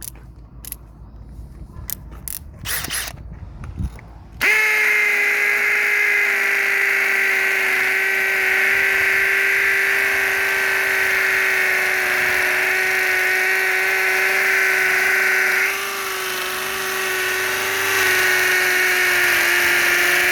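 Makita 18-volt cordless drill with a 12 mm carbide-tipped multi-purpose bit boring into a concrete-filled masonry block. The motor starts about four seconds in with a steady whine under load and keeps running, dropping in level briefly about two-thirds of the way through before coming back up. Before it starts there are light handling clicks.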